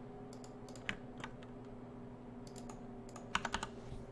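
Irregular keystrokes and clicks on a computer keyboard and mouse, with a quick cluster of clicks near the end, over a faint steady electrical hum.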